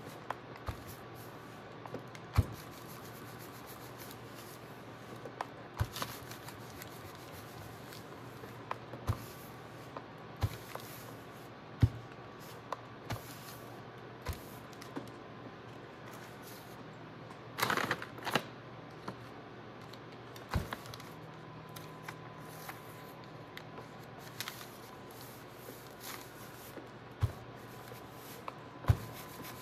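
A household steam iron pressed and slid over crinkled brown kraft packing paper, ironing wax into it: the paper rustles and crackles under the iron, with scattered sharp clicks and knocks and a short burst of louder crackling a little past halfway.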